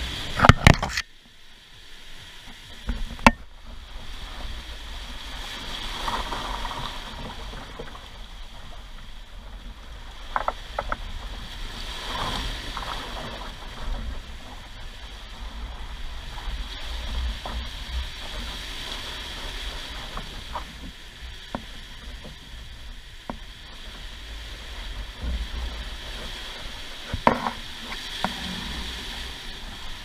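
Sea water rushing and breaking along the hulls and in the wake of a Lagoon 400 sailing catamaran running fast through heavy seas, swelling and easing with each wave. Now and then a sharp click or knock cuts through, a few times over the stretch.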